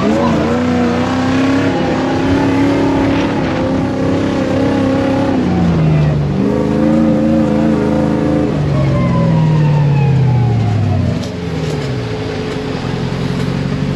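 4WD off-roader's engine under hard acceleration, its pitch climbing and then dropping sharply several times. About eleven seconds in it falls back to a quieter, steadier note.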